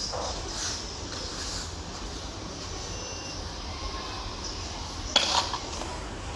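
Steady low hum with a single sharp knock about five seconds in.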